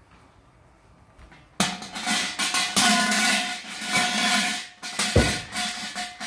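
Large brass shrine bell (suzu) shaken by its rope: a dense rattle with ringing tones that starts about a second and a half in and dies away near the end. A single dull thump about five seconds in.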